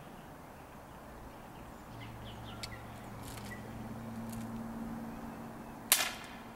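A single sharp gunshot near the end, with a short ringing tail, over faint bird chirps and a low steady hum that swells in the middle.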